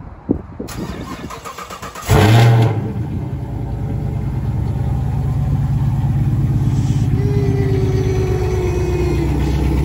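Chevrolet Camaro's V8 cranked by the starter for about two seconds, catching about two seconds in with a loud flare of revs, then settling into a steady idle.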